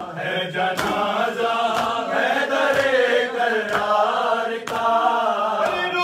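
Urdu noha (mourning lament) chanted by male voices, with a sharp beat about once a second under the chant.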